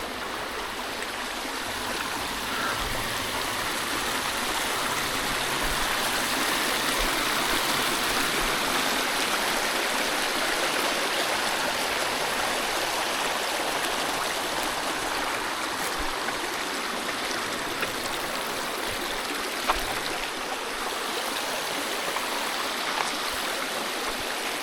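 Trout-creek water rushing steadily, an even rush with no break, with a couple of faint clicks about two-thirds of the way through.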